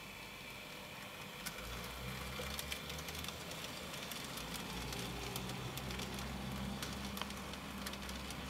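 Graham Farish N gauge Class 31 model locomotive running past with its coaches: a low steady motor hum that grows a little louder about two seconds in, with many irregular small clicks from the wheels on the track.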